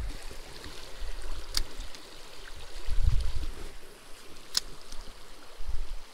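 Shallow creek water flowing over gravel, an even rushing trickle, with low rumbling on the microphone about three seconds in and again near the end, and two short sharp clicks.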